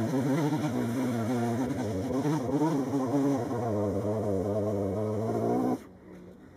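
A two-stroke chainsaw engine running, its pitch wavering rapidly up and down. It drops away abruptly near the end.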